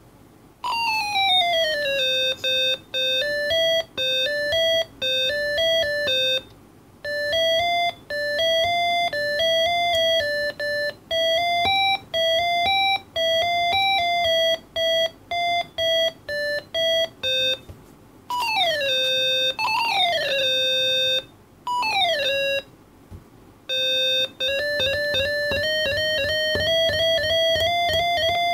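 Electronic tones from the small speaker of an Arduino and MPR121 capacitive-touch organ, played by touching coin keys: a stepwise melody of short beeping notes. A few notes slide down in pitch, most of them around two-thirds of the way in, and near the end the tone rises slowly.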